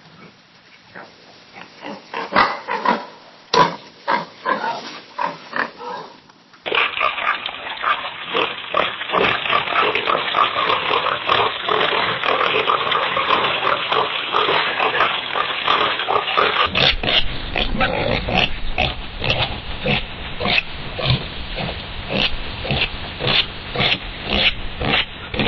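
Domestic pigs oinking, in three recordings one after another. The first has sparse, separate oinks. About a third of the way in a denser recording starts, with rapid oinks in a steady stream. About two-thirds of the way in another starts, with quick oinks over a low hum.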